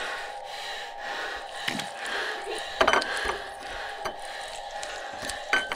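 A steady grating, scraping noise with a few sharp clicks or knocks, the loudest about three seconds in and another near the end.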